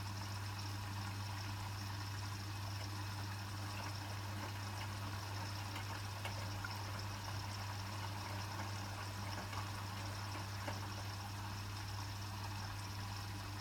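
Hotpoint WMFUG 942 washing machine during its second rinse: water flowing in the machine over a steady low hum, with a few faint ticks.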